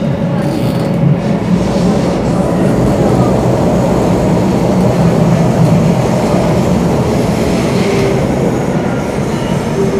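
Singapore MRT Downtown Line train running between stations, heard from inside the carriage: a steady, loud noise of wheels on rail and traction equipment.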